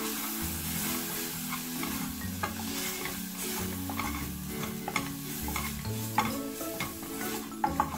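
A wooden spoon stirs and scrapes a dry spice-and-onion masala around a stainless steel saucepan, with short scraping knocks against the pan over a steady sizzle of frying. The mixture has gone extremely dry in the pan.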